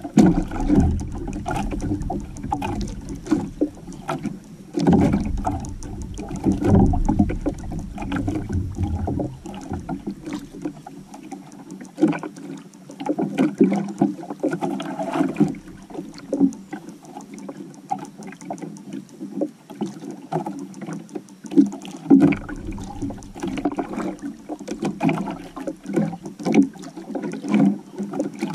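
Water slapping and knocking against the hull and outriggers of a small outrigger canoe, with many irregular clicks and knocks. A low rumble is heard through the first third and again near the end.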